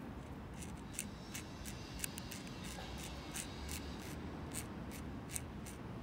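Light, irregular metallic clicks and rubbing as a gloved hand turns a sterling-silver Zippo lighter studded with skulls and a gear, over a low steady background rumble.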